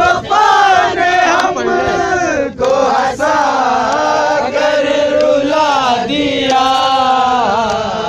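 A group of men singing a Balti ghazal together, many voices joined in one loud, gliding melody line.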